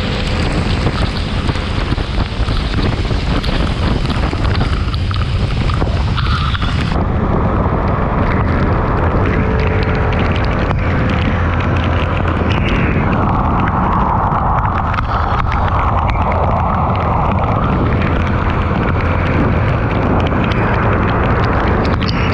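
Heavy wind noise buffeting a motorcycle-mounted camera's microphone at road speed in heavy rain, over the hiss of wet tyres throwing spray. The noise changes abruptly about seven seconds in, losing its highest hiss.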